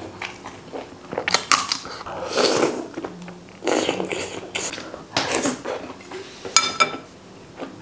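Eating at the table: chopsticks clicking against a ceramic bowl, with noisy bites and slurps in between. Near the end comes a sharp clink that rings briefly.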